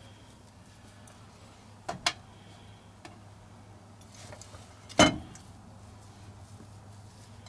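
A few sharp clicks and knocks of kitchen handling as scone dough is put onto a metal convection pan: two close together about two seconds in, and a louder knock about five seconds in, over a steady low hum.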